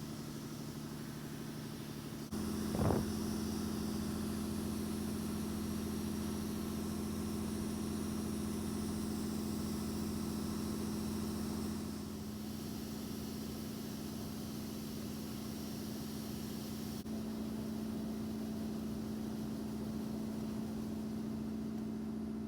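Engine of harvest machinery running steadily at a constant speed. Its level shifts abruptly a few times, and there is a brief sweep about three seconds in.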